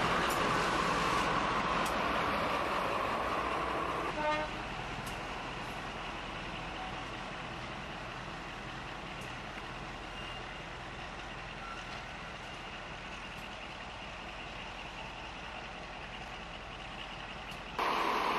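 Class 35 Hymek diesel-hydraulic locomotive's engine running as it passes, with a short horn toot about four seconds in. After that comes a quieter steady engine idle, and the engine sound is suddenly louder again near the end.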